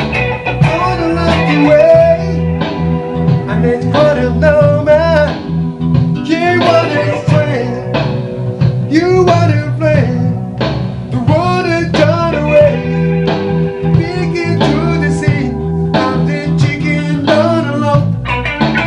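A blues song with a singing voice over guitar and bass guitar.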